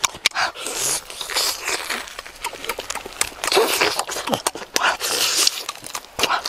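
Close-up eating sounds from roasted chicken head and neck: wet chewing, sucking and lip smacking, with many short smacks and clicks and hissy slurps.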